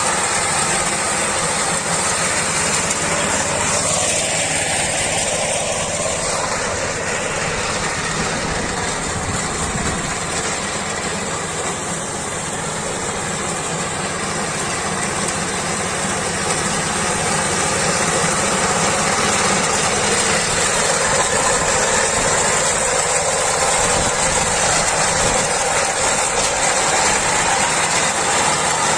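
Engine of a rice harvesting machine running steadily, its level easing slightly midway and rising again.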